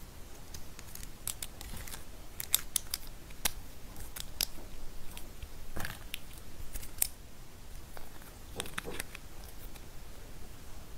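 Small hard-plastic Kinder Joy toy pieces clicking and tapping as fingers handle them and fit the figure onto its stand, in scattered, irregular clicks.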